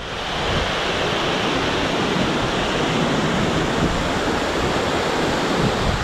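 Mountain stream cascading over rocks: a steady rush of water.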